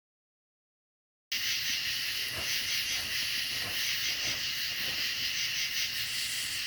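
Silence, then a steady, dense hiss cuts in abruptly about a second in, with faint soft knocks underneath about every half second.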